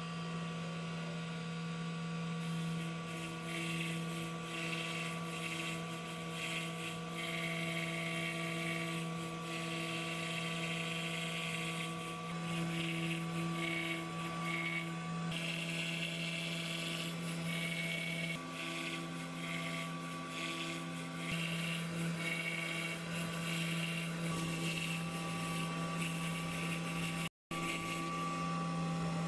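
Makera Carvera desktop CNC mill's spindle running a single-flute spiral bit through epoxy board on a roughing pass: a steady hum under a cutting noise that swells and fades as the bit moves through the material. The sound breaks off for a moment near the end.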